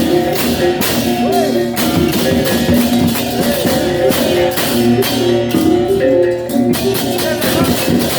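Balinese baleganjur gamelan playing loudly. Repeated pitched gong-chime notes run over a dense, continuous clash of hand cymbals and drum strokes.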